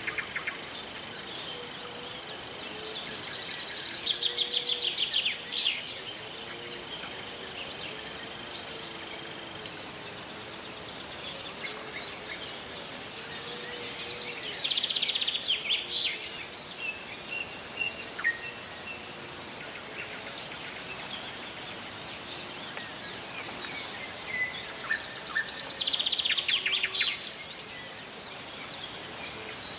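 A songbird sings the same loud, fast-trilled song phrase three times, about ten seconds apart. Faint low frog calls go on throughout, and a steady high insect buzz lasts through the first third.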